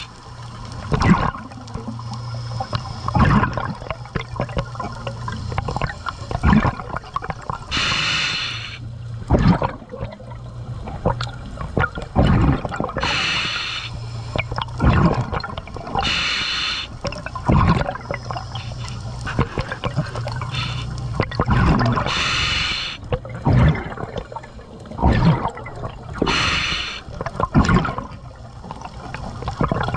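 Scuba diver breathing through a regulator underwater: a loud rush of breath and bubbles every four to six seconds, with bubbling and crackling between breaths over a low steady hum.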